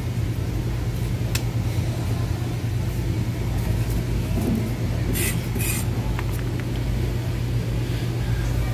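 Steady low machine hum, with a faint click about a second in and two short hissing scrapes about five seconds in.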